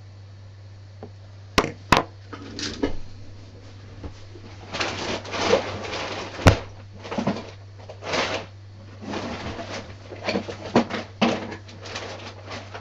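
Hand-handling noises at a clogged 3D printer extruder as the filament is worked out: several sharp clicks, the loudest about one and a half, two and six and a half seconds in, then a run of short scraping and rustling sounds, over a steady low hum.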